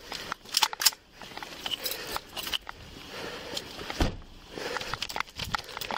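Close handling noise of a police officer's rifle and duty gear against a body-worn camera: rattling, clicks and knocks, with sharp louder knocks a little under a second in and again about four seconds in.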